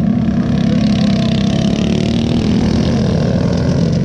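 Several racing go-kart engines running together as the karts circle a dirt oval, a steady overlapping engine drone with no single pass standing out.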